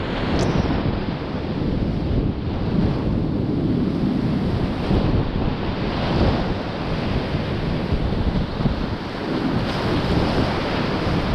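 Whitewater rapids rushing loudly around a kayak as it runs them, with spray and water buffeting the camera's microphone. A brief sharp click about half a second in.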